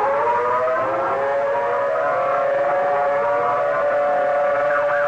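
Outdoor civil defense siren sounding a tornado warning. Its pitch rises over the first second and settles into a steady wail of several notes at once. Near the end a faster siren joins, going up and down about twice a second.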